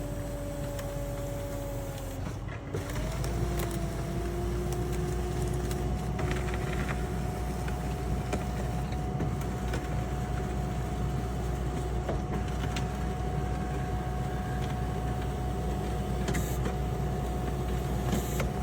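Heavy engine-driven machine running steadily with a mechanical whine. About two and a half seconds in the whine breaks off, then settles at a higher pitch and holds there.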